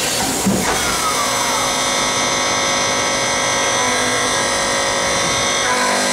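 CNC turning centre's live (driven) milling tool cutting a bar held in the lathe spindle: a steady machining whine made of several held tones over the noise of cutting. A short knock and a falling tone come about a second in, and the tones shift slightly near the end.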